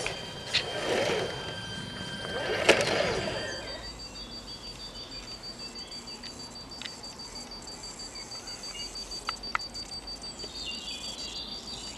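Electric motor and gearbox of a scale RC rock crawler whining as it is throttled up and down a few times in the first few seconds. After that it settles to a quieter steady background with a thin high tone.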